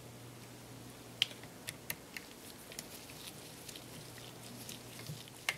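Small precision screwdriver turning out a tiny screw from the top cover of a Canon EOS 60D: faint, irregular clicks and light scrapes of the screwdriver tip in the screw head, over a steady low hum.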